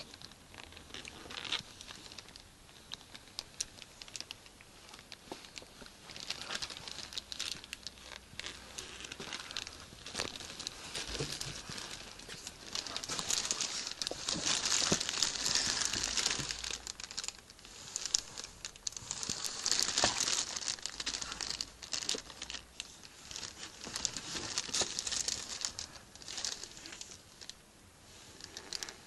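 Rustling and crinkling close to the microphone, with many small clicks and taps, louder in stretches near the middle. This is the handling noise of a handheld camera being carried and moved about.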